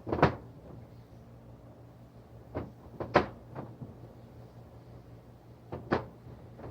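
A handful of short, sharp clicks and knocks, about five, of ignition coils and a dielectric grease tube being handled and set down on a hard surface, over a faint steady hum.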